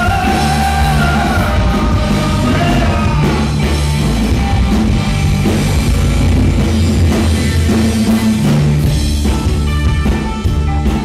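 Live rock band playing with electric guitar, bass guitar and drum kit. A male voice sings a held, wavering line for about the first three seconds, then the band plays on without vocals.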